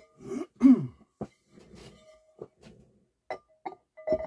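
Metal platter of a Pioneer PL-560 turntable being handled and set onto its spindle: a series of knocks and clinks, some ringing briefly at a steady pitch. About half a second in comes the loudest sound, a short burst falling in pitch.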